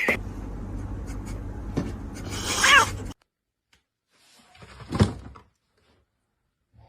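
Domestic cat meowing once over steady background noise, which cuts off abruptly about three seconds in. A single brief sound follows about two seconds later.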